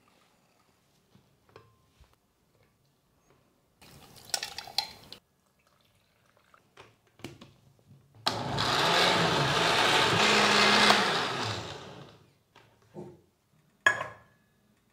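Countertop blender with a glass jar running for about four seconds, puréeing tomatoes and chilies in liquid, then winding down. Near the end comes a single sharp knock as a stainless-steel pot is set down on an electric hot plate.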